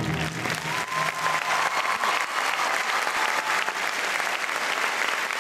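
Large audience applauding, with the last notes of the music dying away in the first second or so.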